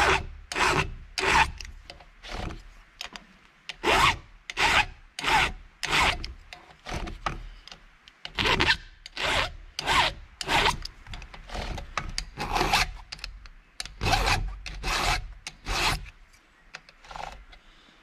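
Flat file rasping over a Stihl chainsaw chain's depth gauges (rakers) through a depth-gauge guide, filing them down; about twenty short strokes in runs of two to four with brief pauses between.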